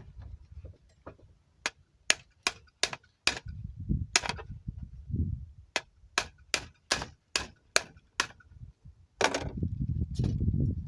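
A cleaning rod tapped again and again down a 6.5 Creedmoor rifle barrel to drive out a jammed bullet: about a dozen sharp knocks at two to three a second, then a scraping rumble near the end.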